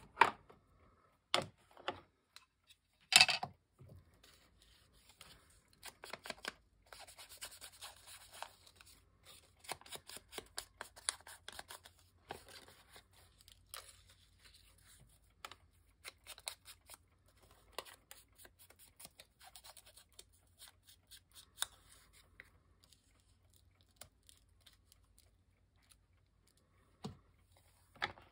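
Scissors cutting paper: a few sharp clicks in the first few seconds, then a quick run of short snips and rasps about six to twelve seconds in, thinning to scattered snips and going quiet near the end.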